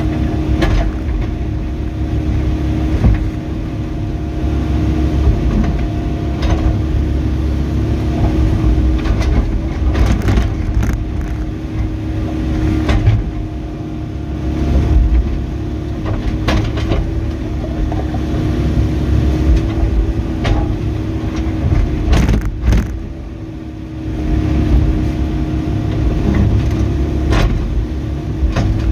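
Volvo ECR88D mini excavator's diesel engine running steadily under digging load, with short knocks now and then. The engine eases off briefly about three quarters of the way in.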